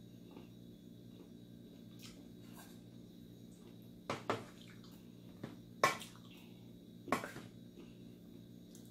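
Close-up eating sounds: quiet, wet chewing with a few sharp mouth smacks and clicks, the loudest four coming between about four and seven seconds in, over a steady low hum.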